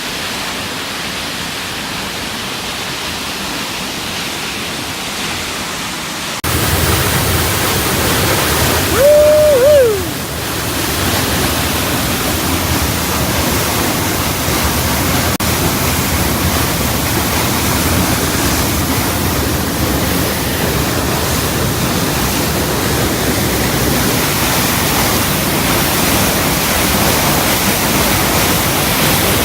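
Panther Falls, a large waterfall, sending down a steady, dense rush of falling water. About six seconds in, the rush jumps louder and fuller. About nine seconds in, a brief held note rises out of it and drops away.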